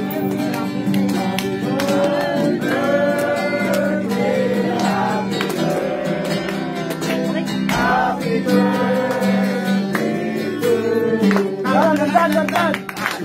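A group of people singing together, accompanied by guitar.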